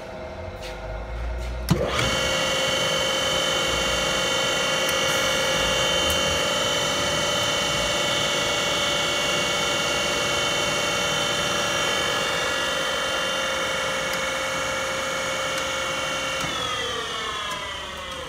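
Kwik-Way 797 flywheel grinder, on 230-volt single-phase power, switched on with a click: its motor and grinding stone spin up in a fraction of a second to a steady whine. It runs for about fifteen seconds, then winds down with falling pitch near the end.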